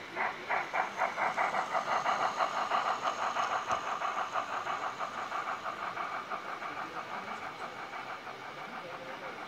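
Gauge 1 model steam tank locomotive's sound unit chuffing, the beats quickening to about five a second as the engine picks up speed. Loudest as it passes close, then fading as it runs away.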